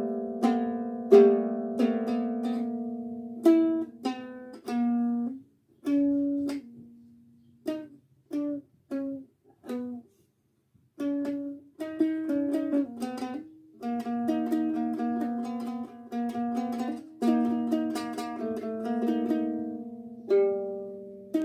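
A newly built handmade ukulele played for the first time: strummed chords, then slower single plucked notes, a brief pause about halfway, and picked notes and chords again.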